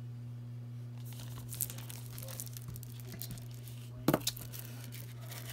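Light crinkling and crackling of plastic shrink wrap as a sealed Blu-ray case is handled, with a sharper crackle about four seconds in.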